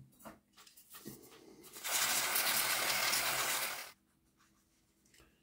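Cleaning the small metal wheels of a model locomotive: a few light handling clicks, then a steady hiss lasting about two seconds from about two seconds in.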